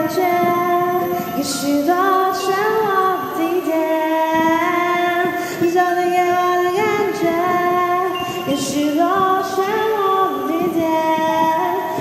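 A woman singing a slow song in Chinese, holding long notes that slide from one pitch to the next.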